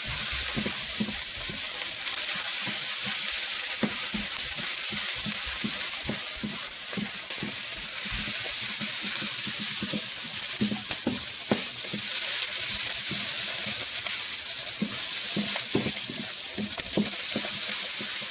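Beef and onions frying in hot oil in a pan, a steady sizzle with many small pops and clicks through it.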